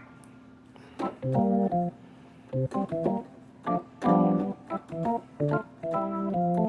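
Yamaha Montage M synthesizer playing an organ patch: short, punchy chords in an upbeat, stop-start rhythm, each chord starting with a click.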